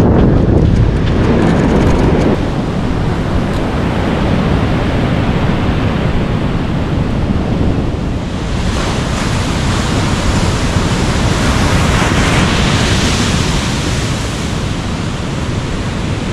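Ocean surf breaking and washing up a beach, with wind buffeting the microphone; a wave rushes in about halfway through and another shortly after.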